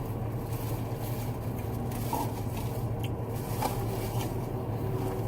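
A man chewing French fries, with faint mouth clicks and crunching over a steady low hum.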